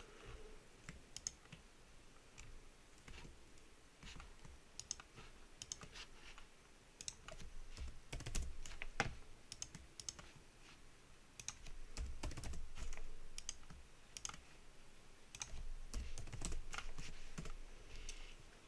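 Scattered computer keyboard key presses and mouse clicks, with a low rumble that comes and goes three times.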